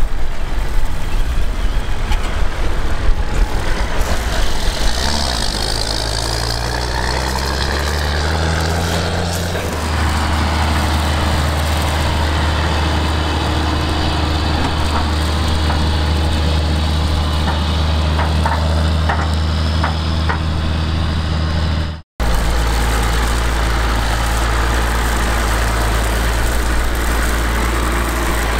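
John Deere 9520 tractor's diesel engine working as it pulls a chaser bin. Its pitch climbs over several seconds, then settles into a steady low drone. The sound breaks off for a moment about two-thirds through, and the steady drone carries on after it.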